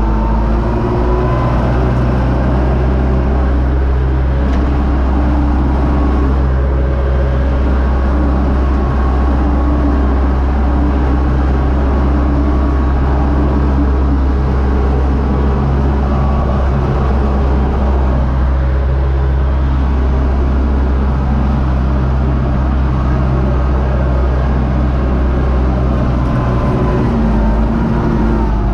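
Universal U650 tractor's four-cylinder diesel engine running steadily, heard from inside the cab.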